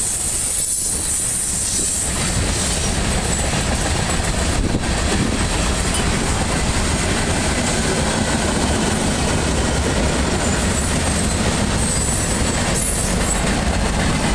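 Freight cars of a Norfolk Southern mixed freight train rolling past: a steady rumble and clatter of steel wheels on the rails.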